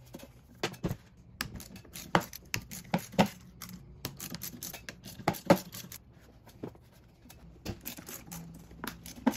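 Scattered sharp clicks and knocks from a 10 mm socket on a swivel extension as it is fitted onto the air-silencer bolts of a Yamaha four-stroke outboard's carburetor bank and breaks them loose.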